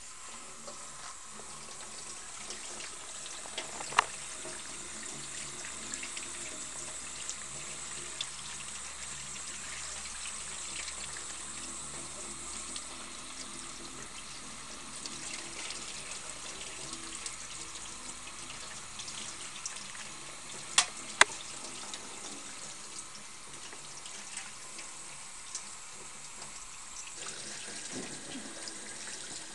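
Kitchen tap running into a bowl of fresh butter in a steel sink while hands knead it, washing the buttermilk out of the butter. There are a few sharp knocks: one a few seconds in, and a close pair about two-thirds of the way through.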